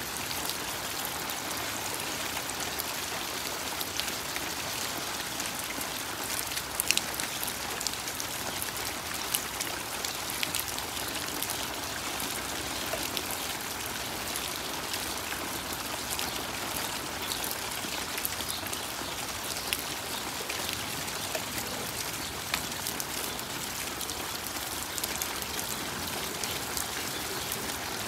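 Steady rain falling: an even hiss, with scattered close drops ticking sharply on nearby surfaces, a cluster of louder ones about seven seconds in.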